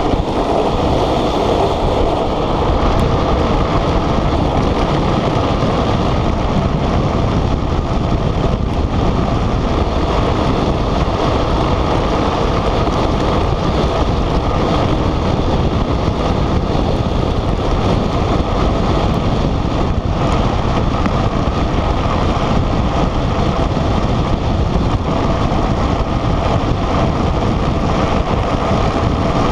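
Steady rush of wind buffeting the microphone, mixed with rolling noise from a gravity speed trike's wheels on rough asphalt at descent speed.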